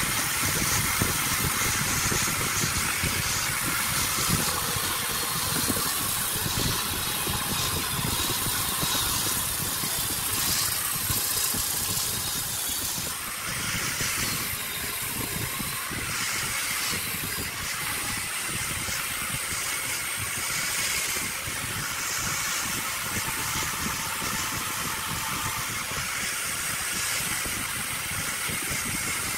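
A woodworking power tool running steadily with a continuous hiss and a faint steady whine.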